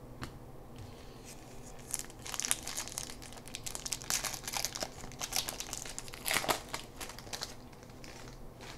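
Wrapper of a baseball trading-card pack crinkling and tearing as it is opened, a dense run of rapid crackly rustles from about two seconds in, loudest near the end and dying away shortly before it ends.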